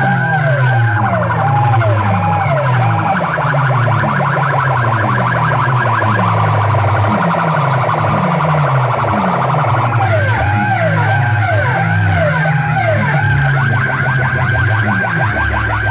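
Large DJ sound-box system blasting electronic siren-style effects: warbling tones that rise and fall a few times a second over repeated falling bass sweeps, with a faster warble through the middle.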